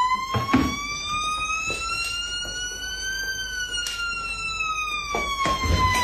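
Violin playing one long slow slide that rises and then falls back, imitating the wail of a police siren. A few knocks and bumps sound under it.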